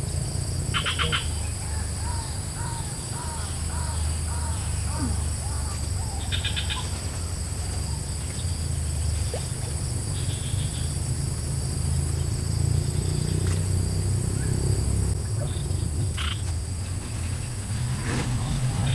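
Swamp ambience: insects droning steadily at a few high pitches, with a run of short repeated calls from a bird or frog a few seconds in and two brief rapid trills. A steady low rumble lies underneath.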